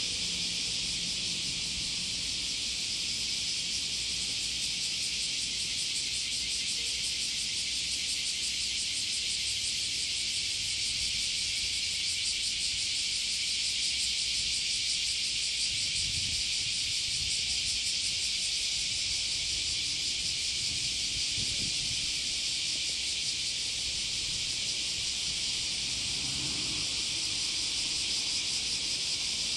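Steady, dense high-pitched insect chorus, a continuous fast-pulsing buzz with no pauses.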